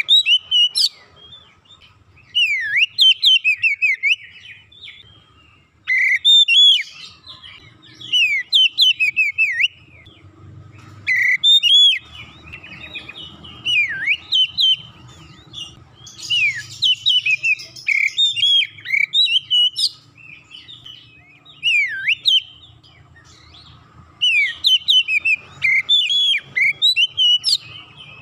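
Oriental magpie-robin singing loud, varied whistled phrases of quick rising and falling notes, in bursts of one to three seconds with short pauses between them.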